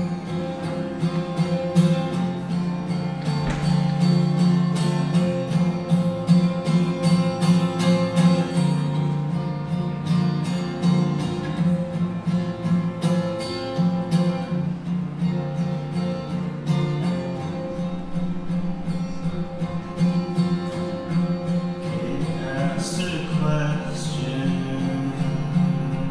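Acoustic guitar playing a steady, repeating pattern of notes and chords. A man's singing voice comes in briefly near the end.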